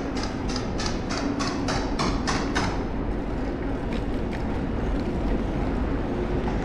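Steady riding noise from a bicycle on the move, a low rumble of wind and road. Over it comes a quick, even clicking about three times a second for the first two and a half seconds, then a few scattered clicks.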